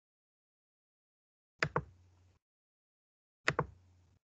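Two short clusters of sharp taps, each of two or three quick strokes, about one and a half seconds in and again near the end, with silence between.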